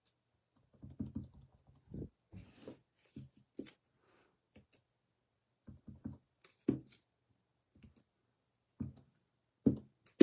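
Clear acrylic stamp block tapped on an ink pad and pressed down onto card stock on a tabletop: a string of short, irregular knocks and taps, with a brief rustle of paper a couple of seconds in.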